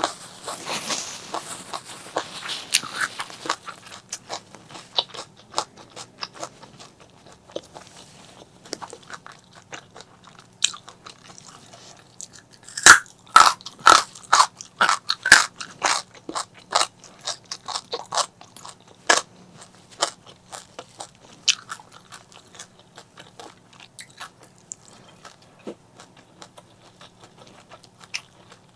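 A person biting and chewing crunchy food close to the microphone: a run of sharp, irregular crunches, loudest in a cluster of bites just under halfway through, then softer, sparser chewing.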